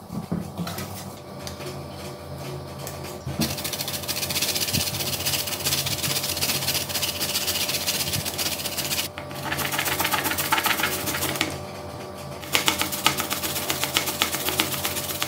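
Peeled raw potato rubbed back and forth on a handheld metal grater: rapid, continuous rasping strokes that begin about three seconds in, after quieter handling sounds, with brief pauses near the middle and later on.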